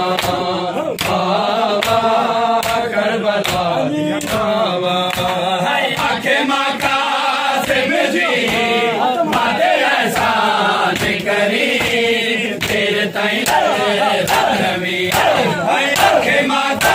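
A crowd of men chanting a noha in unison over a steady beat of chest-beating (matam): sharp slaps of hands on bare chests at an even pace.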